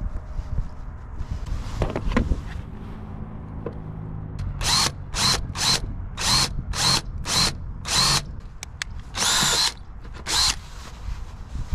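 DeWalt cordless drill drilling a hole in a sailboat mast, run in short trigger bursts about two a second, then one longer run and a final short burst near the end.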